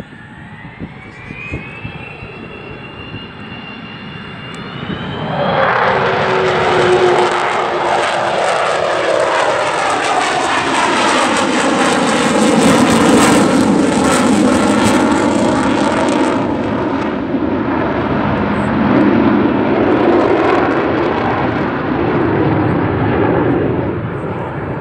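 Avro Vulcan bomber's four Rolls-Royce Olympus turbojets: a rising whine as it comes in, then loud jet noise from about five seconds in as it pulls up and climbs. The noise crackles at its loudest midway and eases off near the end.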